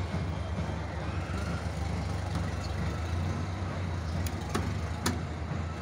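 A motor vehicle engine idling steadily with a low rumble, with a few sharp clicks about four to five seconds in.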